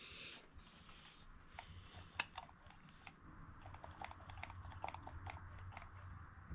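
Faint, scattered light clicks and taps of hands handling plastic parts of a backpack blower's air filter housing, with one sharper click about two seconds in.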